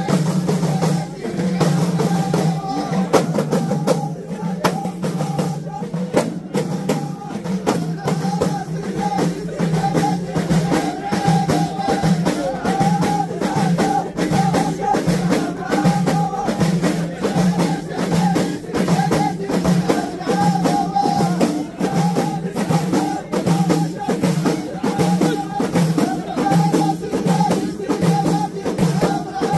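Ahidous: a group of men beating bendir frame drums in a steady, driving rhythm while singing together in chorus.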